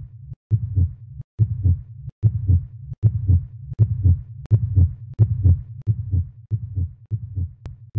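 Heartbeat sound effect: deep paired thumps, lub-dub, repeating about once every 0.8 seconds and gradually quickening.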